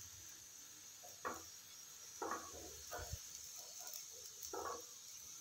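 A steel spoon spreading oil over a paratha on a hot iron tawa, making a few soft, scattered scrapes and light taps over a faint steady hiss.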